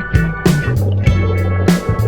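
Background music: a rock track with guitar and bass over a steady beat.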